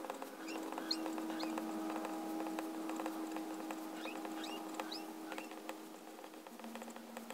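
Extra-fine fountain pen nib (Pilot Penmanship EF) writing on Rhodia paper: a quick run of scratchy little strokes, with several short, rising, high squeaks as the nib moves.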